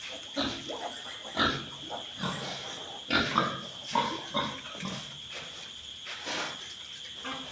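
Piglets squealing and grunting in short calls about once a second, the loudest a little after three seconds in.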